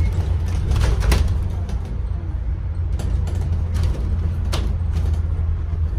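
Steady low rumble of a double-decker bus driving along, engine and road noise heard from inside the upper deck, with a few short rattles and clicks from the bus's fittings.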